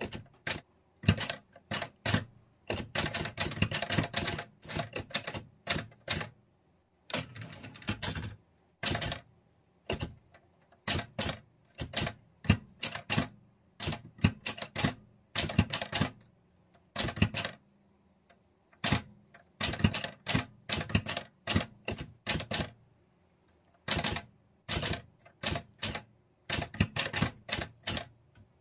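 Olivetti Linea 98 manual typewriter being typed on: key strikes in quick irregular runs with brief pauses between words and lines.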